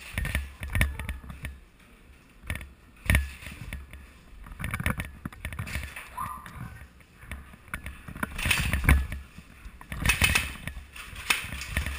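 Irregular knocks, thumps and scrapes of a player's footsteps, gear and airsoft gun being handled and brushing against walls and netting while he moves, with louder rustling stretches near the end.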